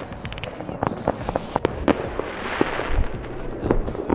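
Fireworks going off: a rapid, irregular run of sharp cracks and pops, with a steady high hiss setting in about a second in.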